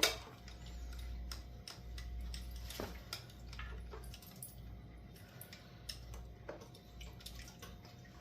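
Scattered light clicks, taps and small rattles from hands working on the bike's fittings, over a faint low hum.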